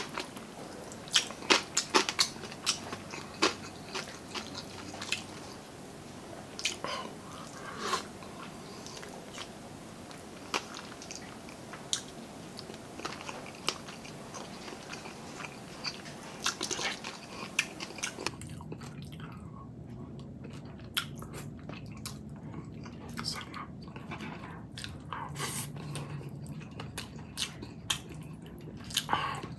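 A person chewing and biting food close to the microphone, with many irregular sharp crunches and clicks, some in quick runs.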